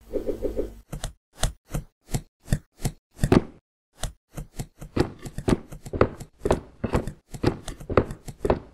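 A run of short, sharp knocking hits, about three a second at first, then quicker and denser from about four seconds in.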